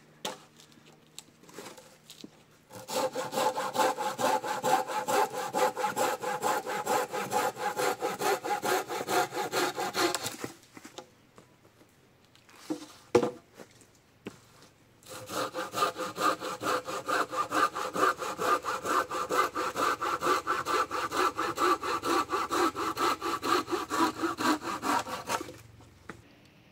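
Silky Big Boy folding pruning saw cutting through wood with quick, even back-and-forth strokes. There are two long bouts of sawing with a pause between them and a single knock during the pause.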